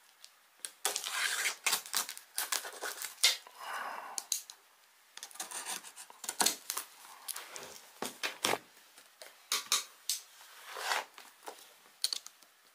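Snap-off utility knife blade slitting and scraping through plastic shrink-wrap on a cardboard box: an irregular run of short sharp scrapes and clicks.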